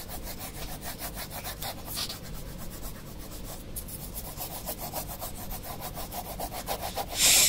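6B graphite pencil shading on drawing paper: quick back-and-forth strokes rasping across the sheet, several a second, with a brief louder hiss near the end.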